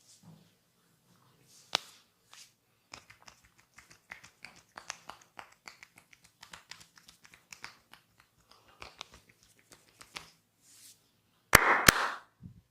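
Barber's hands working the scalp and hair in a head massage, giving a quick irregular run of small dry crackles, with a single sharp crack a couple of seconds in. Near the end comes the loudest sound: two sharp cracks close together with a rush of noise between them.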